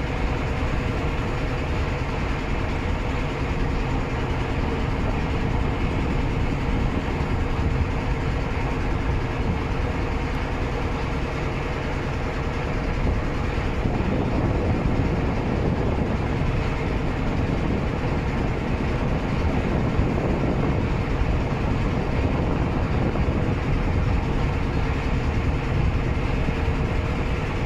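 Steady drone of a river paddle steamer's engine under way, with rushing water alongside the hull. The noise grows a little rougher about halfway through.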